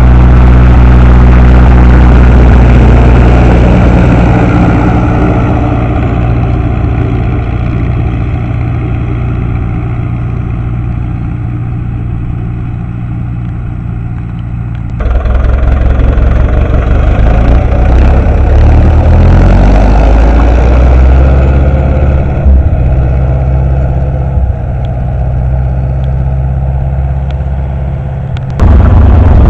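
Ursus C-355 tractor's four-cylinder diesel engine running steadily under load while pulling a field cultivator. It fades over the first fifteen seconds, comes back suddenly louder, and shifts up in pitch a few seconds later.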